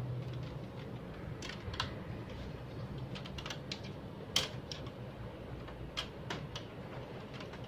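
Scattered plastic clicks and knocks as the transfer belt unit of an HP Color LaserJet CP5225 is handled and slid back into the printer, the sharpest knock about four and a half seconds in, over a steady low hum.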